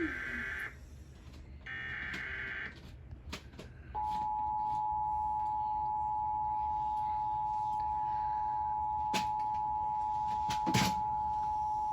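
Emergency Alert System broadcast opening: two short bursts of SAME digital header data, then the steady two-tone EAS attention signal for about eight seconds, heralding a severe thunderstorm warning. A few sharp clicks sound over it, the loudest near the end.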